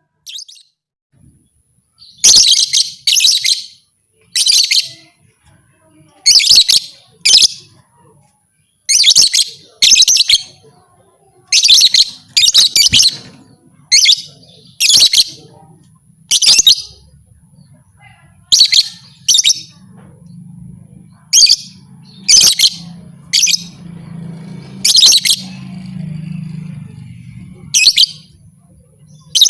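Lovebird giving short, high-pitched chirping calls, singly and in quick pairs, about one every second.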